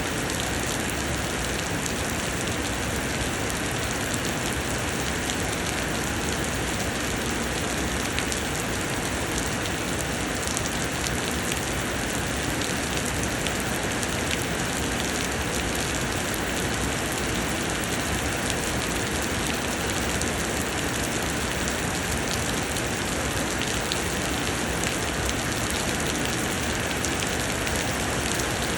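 Summer rain pouring down, a steady dense hiss with many small drop ticks and no change in strength.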